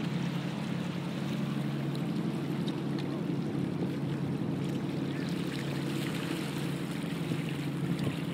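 A boat's engine running steadily with a low, even drone, over the rush of fast-flowing floodwater.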